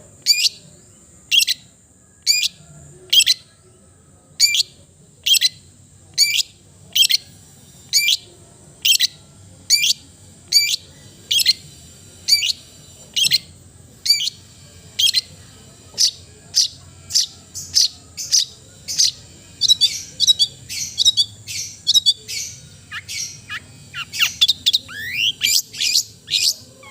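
Long-tailed shrike (cendet) giving short, harsh calls about once a second, coming faster and more jumbled about two-thirds of the way through, with quick rising whistles near the end. A steady high hiss runs underneath.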